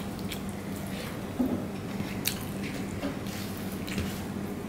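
Rice and curry being mixed and squeezed by hand on a steel plate: soft wet squishing with scattered light clicks.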